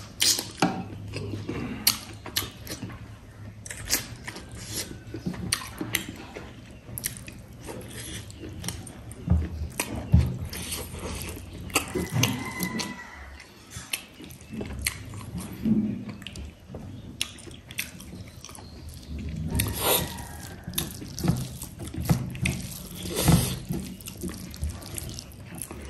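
Close-up eating sounds: wet chewing and lip smacking with irregular clicks, from rice and curry being eaten by hand.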